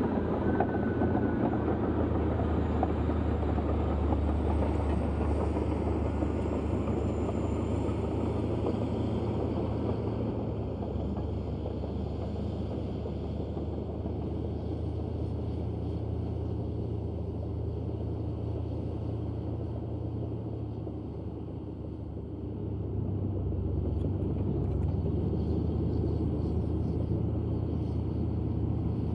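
Komatsu D155A bulldozer's six-cylinder diesel engine running steadily while clearing. Its low drone dips briefly about two-thirds of the way through, then picks up again.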